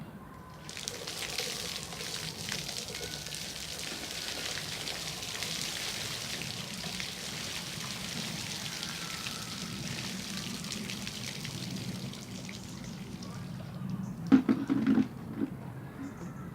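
Collected cold rainwater being poured out in a steady splashing stream for about thirteen seconds, as in a cold-water dousing for hardening. A few loud knocks follow near the end.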